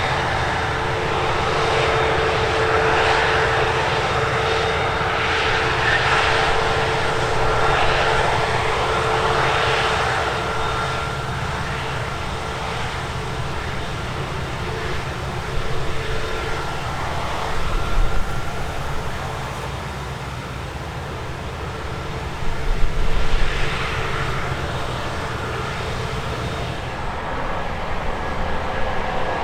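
Heavy diesel harvest machinery running steadily: a deep engine drone with a steady whine on top, and a few brief louder low thumps about two-thirds of the way through.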